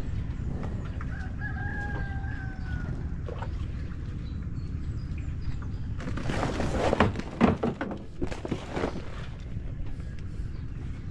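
A rooster crowing once: a long call that eases down in pitch at the end, over a steady low rumble. About six seconds in comes a louder run of rustling and knocks lasting some three seconds.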